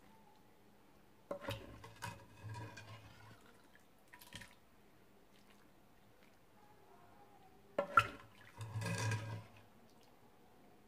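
A metal ladle is dipped into a pot of broth and the broth is poured over a platter of couscous, twice: each time a sharp clink of the ladle, then about a second of splashing liquid. The first comes about a second in, the second near the end.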